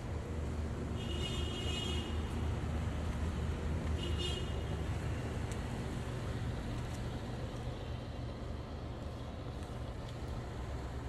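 Steady low hum of street background noise, traffic or machinery, with two short high-pitched squeaks about one and four seconds in.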